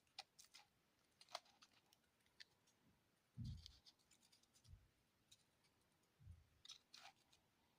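Faint scratching and small clicks of candy packaging being handled, with three soft low thumps in the middle.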